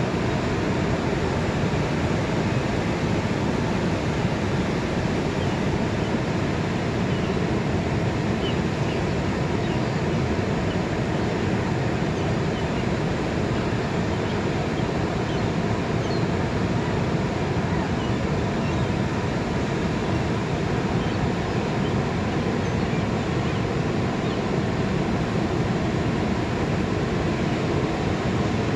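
Pacific surf breaking and washing up the beach on an incoming tide: a steady, unbroken rush of wave noise.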